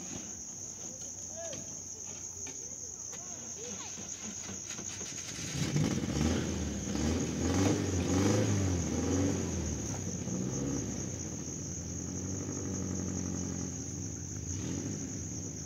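Crickets chirring steadily in a high, unbroken band. About six seconds in, a louder, low, rumbling sound with shifting pitch swells and then fades over several seconds.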